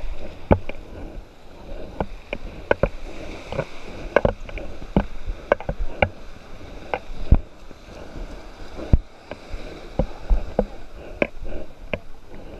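Scuba gear knocking and clattering in time with a diver's steps, about one sharp knock every half to three-quarters of a second, over a low wash of surf.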